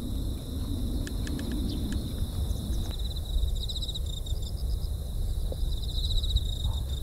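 Insects singing in tall grass, a steady high buzz broken by quick pulsed trills, over wind rumbling on the microphone. A few short high ticks come about a second in.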